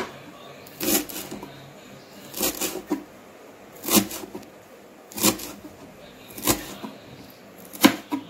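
Large kitchen knife chopping fresh coriander on a cutting board: sharp knocks of the blade striking the board, about seven of them at an even, unhurried pace, some followed by a couple of lighter taps.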